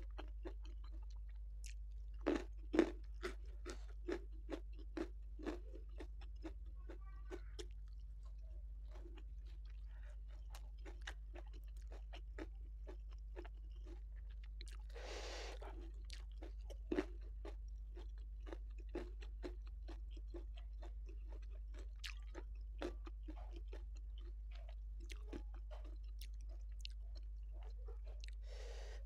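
Close-miked mouth chewing a handful of rice, salted fish and sambal with raw lalapan greens, with steady small wet clicks and crunches. A few louder crunches come early, and there is a short breathy noise about halfway through. A steady low hum runs underneath.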